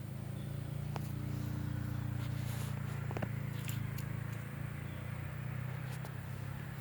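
A motor engine running steadily with a low hum, with a few light clicks over it.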